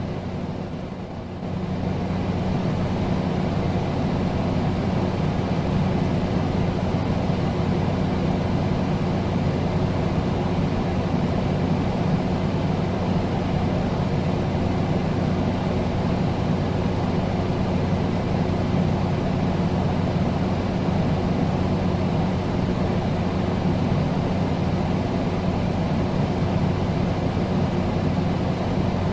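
Air conditioner running: a steady rush of air over a constant low hum, with a brief slight dip in level about a second in.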